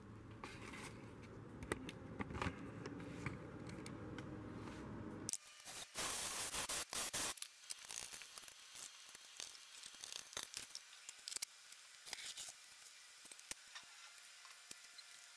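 A loud rustle about five seconds in, then irregular light crackling, tearing and scraping sounds of hand work at a bare Land Rover 300Tdi engine block.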